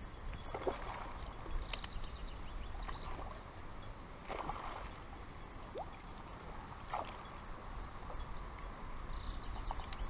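A hooked asp splashing at the water surface several times as it is played in close, over a steady low rumble.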